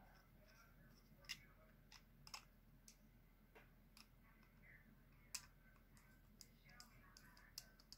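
Faint, irregular clicks of a screwdriver tip working in the steel trigger guard screws of a Herbert Schmidt Model 21 .22 revolver, with near silence between them.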